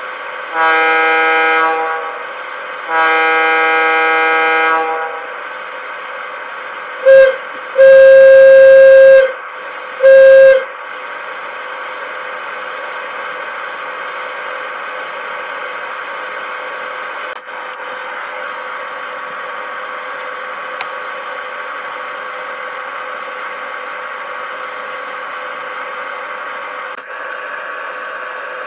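Model locomotive sound decoder playing through a small speaker: two long horn blasts, then a lower, louder short–long–short horn sounding that hits full volume and distorts. Under it runs a steady electric hum from the locomotive's background sound.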